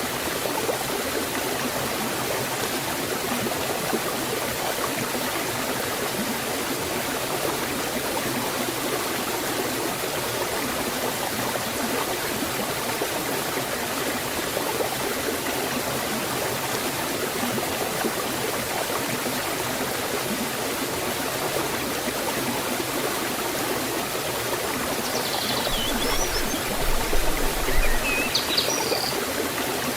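Water rushing steadily over a small forest waterfall and stream. A few short, high bird chirps come in near the end.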